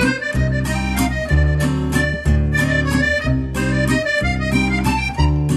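Background music: a bouncy instrumental tune with a bass note about once a second.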